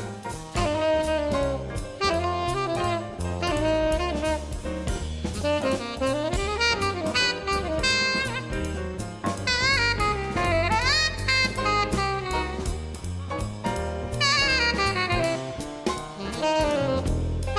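A tenor saxophone plays a flowing jazz melody line over a quartet's rhythm section of piano, bass and drum kit, with steady cymbal strokes and a moving bass line underneath.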